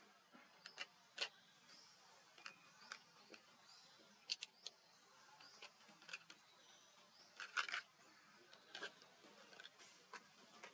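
Near silence broken by scattered sharp clicks and ticks at irregular intervals, with a few faint short high chirps; the loudest is a quick cluster of clicks about seven and a half seconds in.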